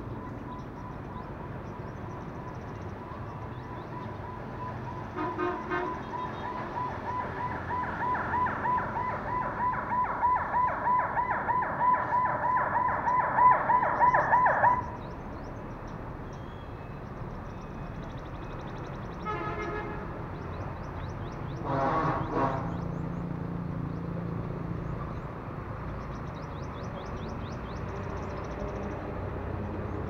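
A rapidly pulsing electronic alarm tone, about three pulses a second, grows louder for about ten seconds and then cuts off suddenly. Two short, harsher tones follow a few seconds later, under faint high-pitched bird chirps.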